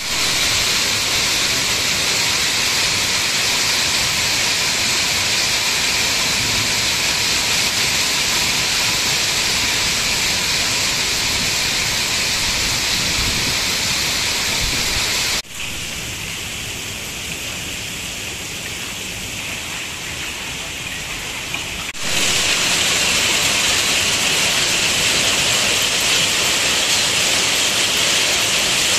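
Hailstorm: hail and rain pelting the street and building fronts in a steady, dense hiss. It drops sharply quieter for about six seconds midway, then comes back at full strength.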